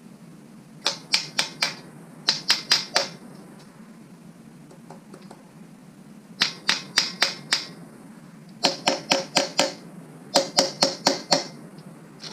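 Hammer tapping on metal in five quick bursts of four to six sharp, ringing strikes, about five a second, driving piston 5 out of the small-block Chevy's bore.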